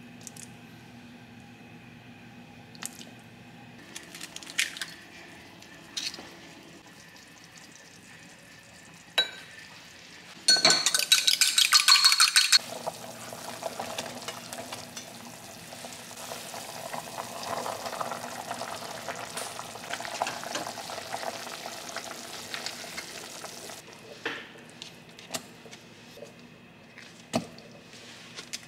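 Cooking sounds at an enamelled cast-iron pot of simmering broth: scattered light taps and clinks of a metal bowl and utensils against the pot, and a loud rapid rattle for about two seconds a little over a third of the way in. After that comes a steady soft hiss from the pot, with more taps near the end.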